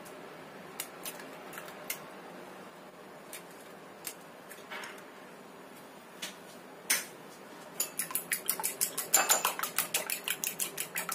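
Two eggs being beaten in a bowl: a few scattered knocks of the utensil on the bowl, then quick, rapid clicking of the utensil against the bowl, several strokes a second, from about eight seconds in.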